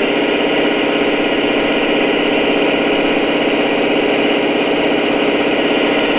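Simulated diesel engine idling steadily, played through the speaker of an RC scale model's engine sound module.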